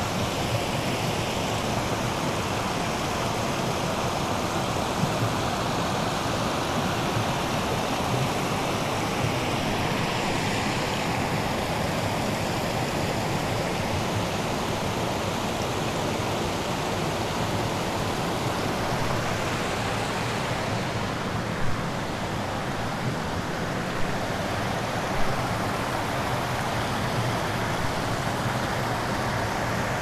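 Steady rush of water from the Erawan waterfall's cascades, an even hiss with no let-up. A few brief knocks stand out about two-thirds of the way through.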